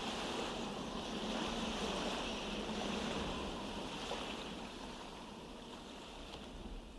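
Sound of sea waves and wind as a steady wash of noise closing out a song, slowly fading away.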